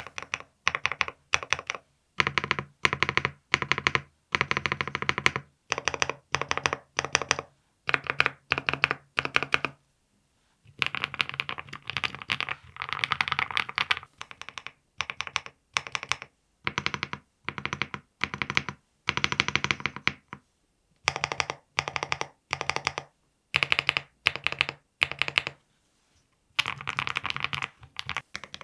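Stabilized large keys on a VXE75 75% mechanical keyboard, such as the spacebar, enter and shift, pressed in quick runs of clacks with short pauses between runs. The run breaks off briefly about ten seconds in and again near the end as the test moves on to the next switch or board set-up.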